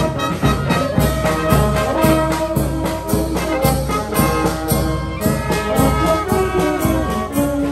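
A marching band playing as it parades, clarinets, saxophones and brass horns together over a steady beat.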